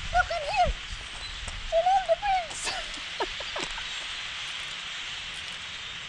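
Steady, dense chattering din of a huge flock of birds passing overhead. In the first couple of seconds a few louder, sliding calls rise and fall over it, and a handful of short, sharp pitch sweeps come a little past the middle.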